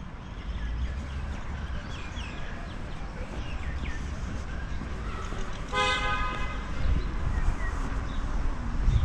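A single short vehicle horn toot about six seconds in, a brief pitched beep with many overtones. Birds chirp now and then over a steady low rumble.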